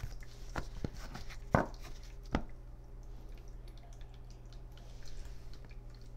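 Tarot cards being handled on a table: a few sharp light taps and clicks in the first two and a half seconds, then only faint ticks. A steady low electrical hum runs underneath.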